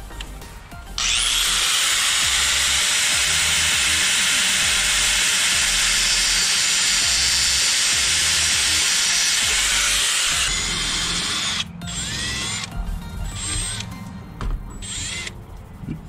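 Small cutoff wheel spinning up with a rising whine about a second in, then grinding steadily through a crimped battery cable terminal for about nine seconds before stopping. Two short bursts of the tool follow near the end.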